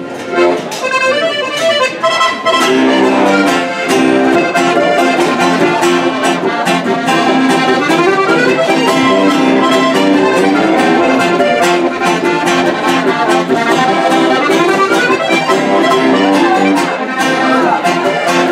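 Diatonic button accordion (Steirische Harmonika) and acoustic guitar playing a folk tune together. The guitar strums a steady rhythm under the accordion's melody and bass. The music starts about half a second in and fills out a couple of seconds later.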